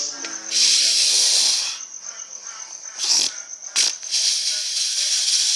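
A man snoring in his sleep: long hissing breaths, the first starting about half a second in and the second about four seconds in, with a short wavering groan at the very start and brief snorts in between.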